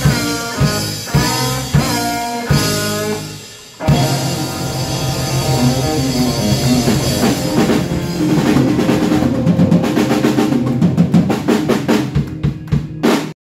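Live blues-rock band of electric guitar, bass guitar, keyboards and drum kit playing a song's big ending: a few separate full-band hits, then a held chord over a drum roll that grows faster and denser and cuts off suddenly near the end.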